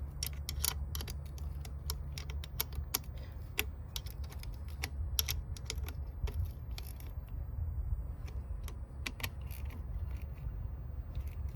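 Irregular light clicks and clinks of hand tools and parts being handled in an engine bay, thick at first and then sparser, over a steady low background rumble.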